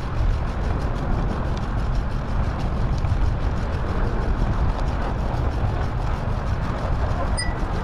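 Steady low rushing noise of wind on the microphone and road rumble from a bicycle in motion. A brief faint high chirp sounds near the end.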